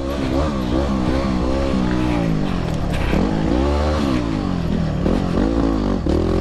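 Yamaha WR250R's single-cylinder four-stroke engine under hard riding, its revs rising and falling again and again as the throttle is worked and gears change.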